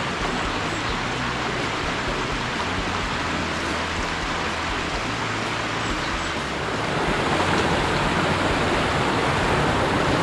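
Mountain stream water running over and between boulders, a steady rush that grows a little louder about seven seconds in.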